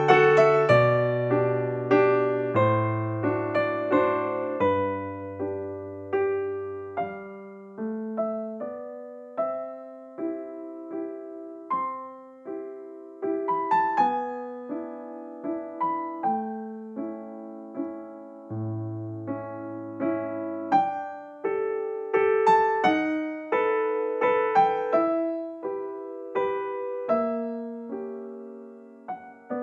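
Background music: a gentle solo electric piano piece, notes struck one after another and fading, over a bass line.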